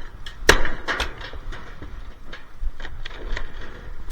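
Hammer blows on a dishwasher being stripped for scrap: a sharp strike about half a second in, then lighter knocks and rattles of loosened parts, and another sharp strike at the very end.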